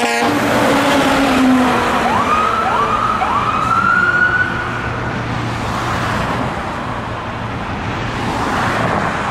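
Fire rescue truck's siren winding up in three quick rising sweeps, the last held high for about a second before it stops. Underneath, the truck's engine runs as it passes and pulls away. A brief rattling burst comes right at the start.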